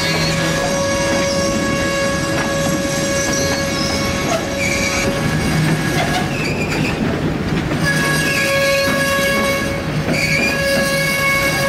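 Loaded freight gondola cars rolling by on the rails, the wheels squealing in a steady high-pitched whine over the rumble of the train. The squeal drops out for a couple of seconds in the middle, then comes back.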